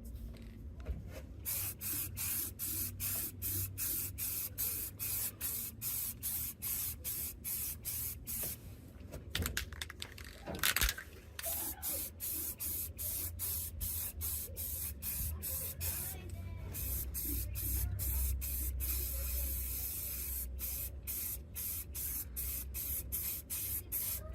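Aerosol spray can spraying paint in short repeated bursts, about two a second, with one longer continuous spray near the end.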